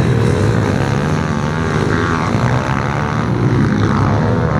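Several pit bikes racing on a dirt track, their small single-cylinder engines revving up and down and overlapping as riders accelerate through the bends.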